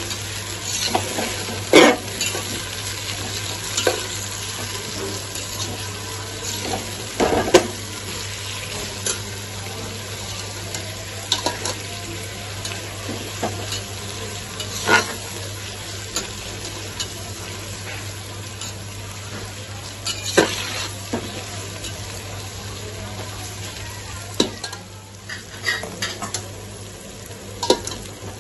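Sliced onions and tomatoes sizzling in hot oil in a large aluminium pot while the tomatoes cook down, stirred with a metal spoon. The spoon scrapes the pot and knocks sharply against it about five times.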